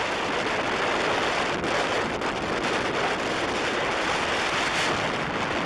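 Strong wind buffeting the microphone in a steady rush of noise, with surf from the sea mixed in.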